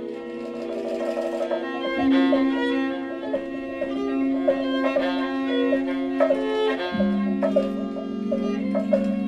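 Violin playing long held notes in a slow, layered contemporary improvisation, over a low held tone that shifts down about seven seconds in. A few short struck percussion hits come through.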